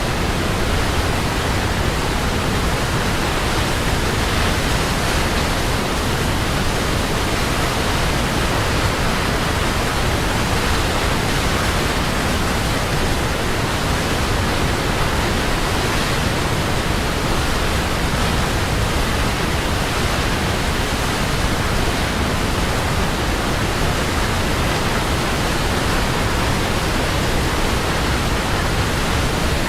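Waterfall: the steady, unbroken rush of falling water, even and unchanging throughout.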